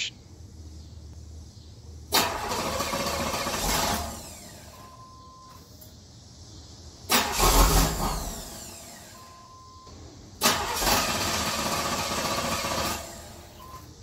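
1992 Camaro Z28 V8 being cranked by the starter three times, each attempt lasting about one and a half to three seconds, the second louder and deeper than the others; the engine does not catch and keep running, the hard-start fault of this car. A short electronic beep sounds twice between attempts.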